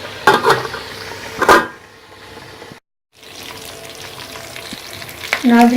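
Chicken frying in hot oil in a pan, a steady sizzle. Near the start come a few sharp clattering knocks, like a metal lid being set on the pan. The sound drops out abruptly for a moment around the middle.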